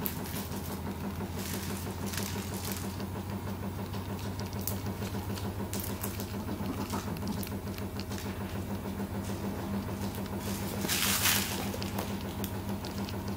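A Maltese puppy scrabbling and rustling on a fleece dog bed while wrestling a plush toy: soft scattered pawing and rubbing noises, with one louder rustle about eleven seconds in, over a steady low hum.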